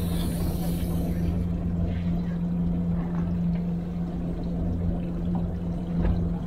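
Fishing boat's engine running with a steady low hum, while water sloshes against the hull.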